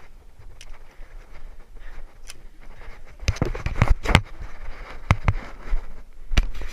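Several sharp knocks and thumps over a faint steady background: a quick cluster about three seconds in, then a few single knocks near the end.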